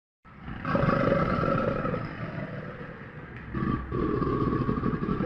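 Crocodile growling: two long, deep growls, the first starting just under a second in and the second about three and a half seconds in.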